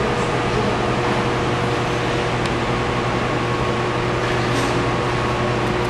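A steady machine hum over an even hiss, holding level without change.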